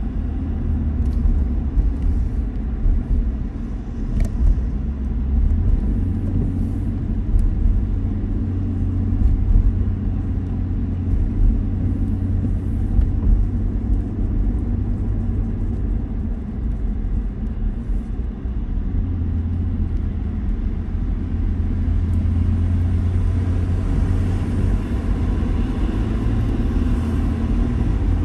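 Steady low rumble of a moving car's road and engine noise, heard from inside the cabin while driving at road speed.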